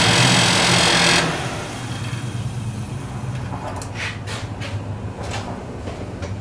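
Heater blower motor running, its new fan blade pushing a strong stream of air. About a second in the loud rushing noise drops off sharply, leaving a low steady hum, with a few light clicks later on.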